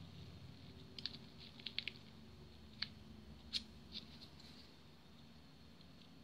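Light clicks and taps of a Staedtler Mars 780 clutch pencil's lead and metal tip in a Staedtler 502 lead pointer as the lead is set and worked in it: a few sharp clicks, three in quick succession about two seconds in and a louder one past three and a half seconds, then only a low hum.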